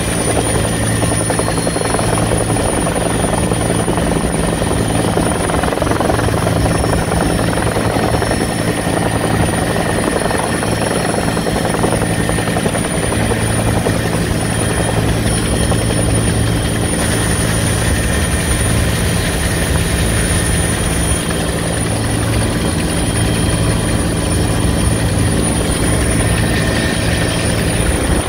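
Rescue helicopter hovering, heard through its open cabin door: steady rotor and engine noise with a thin, high, steady whine above it and rushing air.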